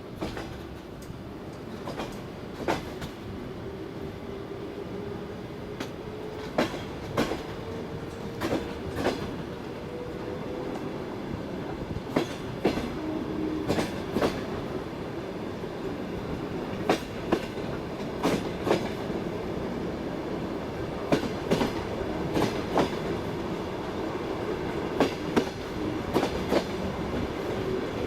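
Passenger train carriage running on the rails with a steady rumble, its wheels clacking over the rail joints in quick pairs every second or two.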